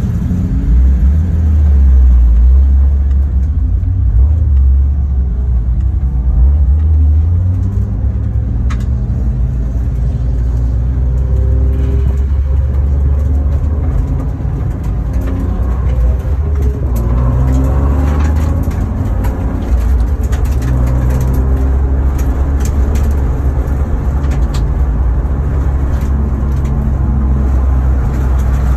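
BMW E36's inline-six engine heard from inside the cabin, pulling away from a stop at low speed: a deep steady drone with the pitch rising several times as it revs up through the gears.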